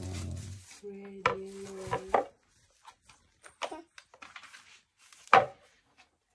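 Wooden furniture pieces knocking and clattering as they are handled, a few separate knocks with the sharpest about five seconds in.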